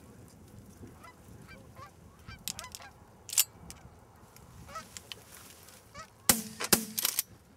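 Geese honking overhead, short repeated calls, then a quick volley of about four shotgun shots a little over six seconds in.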